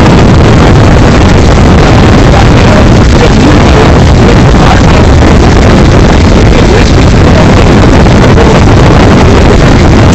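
Loud, steady, distorted noise from an overloaded recording, with a man's voice through a handheld microphone faintly buried in it.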